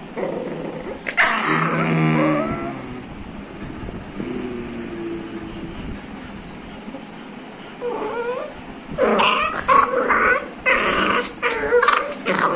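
Young grey puppy howling and whimpering. There is a drawn-out howl about a second in and a fainter whine around four seconds, then a string of short yips and whines over the last four seconds.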